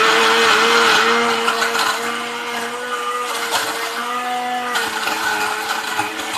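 Khind electric countertop blender running at speed, chopping ginger, galangal and shallots in water into a paste: a steady motor hum with a churning, gritty noise over it, loudest for the first two seconds and then a little quieter.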